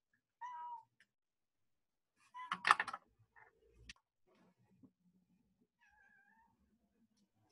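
A cat meowing in three short calls, the loudest about two and a half seconds in and the last one falling in pitch.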